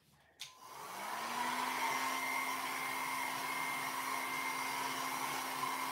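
A hand-held hair dryer is switched on with a click just under half a second in. Its motor spins up, the hum rising in pitch for about a second, then it runs with a steady hum and blowing air.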